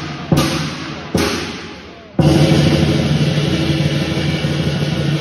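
Chinese lion dance percussion band of drum, cymbals and gong: two single loud crashes, each left to ring and fade, then at about two seconds the band breaks into continuous fast drumming and cymbal clashing.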